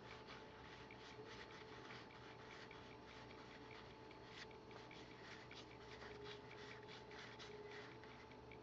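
Faint, repeated soft rubs and flicks of cardboard trading cards being slid one by one off a stack, over a faint steady hum.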